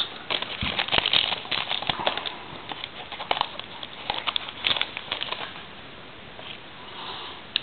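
A trading card pack's wrapper crinkling and tearing open, with the cards inside being handled, as an irregular crackle and rustle that thins out for the last couple of seconds.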